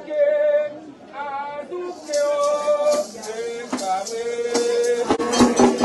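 Voices singing a Vodou ceremonial chant in long held notes. About two seconds in, a rattle starts shaking in a steady rhythm, and sharp percussion strikes join near the end.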